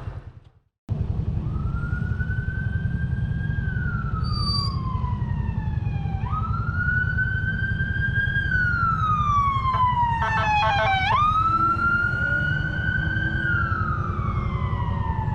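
An emergency-vehicle siren wailing, slowly rising and falling in pitch three times, with a brief burst of rapid pulsing about ten seconds in, over a steady low engine rumble.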